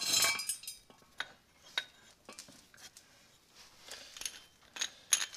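Metal clinks and scrapes from handling a disc-brake caliper and a screw-type caliper piston compressor tool: a scrape at the start, then scattered sharp clinks with quiet gaps between.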